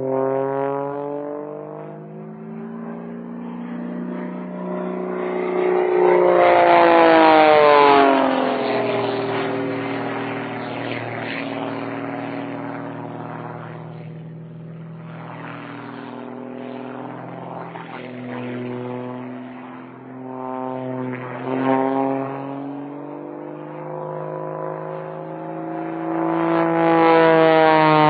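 Propeller plane flying aerobatics: its engine drone swells and fades, and the pitch glides up and down as it manoeuvres, loudest about seven seconds in and again near the end. The vintage recording sounds dull, with no high end.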